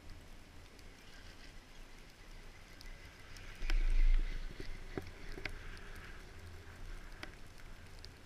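Detachable chairlift riding past a tower: a low rumble as the haul rope carries the chair's grip over the tower sheaves, loudest about three and a half seconds in, with a few sharp clicks around and after it.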